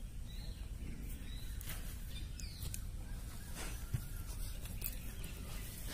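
Outdoor ambience: faint bird chirps over a steady low rumble, with a few sharp handling clicks and knocks, the sharpest about four seconds in.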